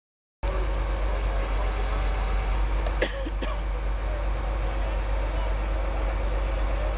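After half a second of silence, a steady low drone of idling heavy vehicles: the diesel wheel loader and the safety trucks. About three seconds in there are two short knocks.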